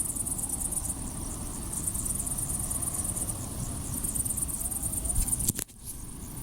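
Crickets chirping in a steady pulsing chorus over low rumbling background noise, with a few faint short wavering calls about two-thirds of the way in. The sound drops out abruptly near the end.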